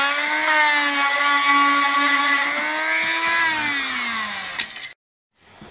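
A handheld power tool's motor runs at a steady high whine. About three and a half seconds in it winds down in pitch as the trigger is let go, then stops abruptly.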